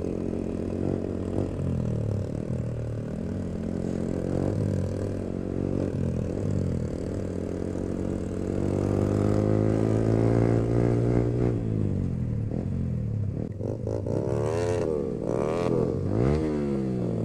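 Yamaha R15M's single-cylinder engine with a loud aftermarket full exhaust, riding along with the revs rising and falling through the gears. There is a long climb in revs a little past halfway, then three quick rev blips near the end.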